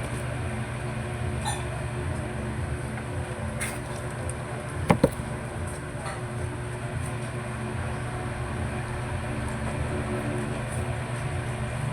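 Two sharp knocks in quick succession about five seconds in, over a steady low hum.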